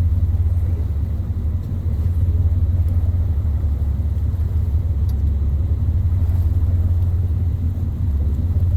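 Whale-watching boat's engine running with a steady low rumble.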